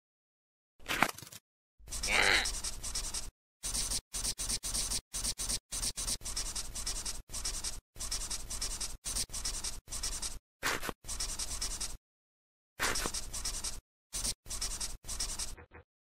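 Pen scribbling on paper in quick strokes, coming in bursts with short pauses between them: the sound of colouring in.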